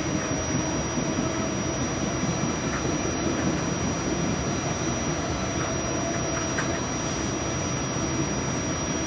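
RTA Blue Line light-rail car running along the track, heard from on board: a steady rumble with a faint, thin high whine held throughout.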